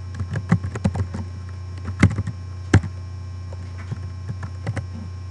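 Irregular clicks and taps of a computer keyboard and mouse: a quick run in the first second, two louder clicks about two and three seconds in, and a few lighter ones near the end, over a steady mains hum.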